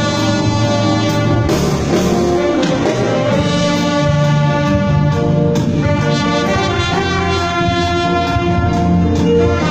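Orchestra with prominent brass playing a hymn tune in sustained, held notes.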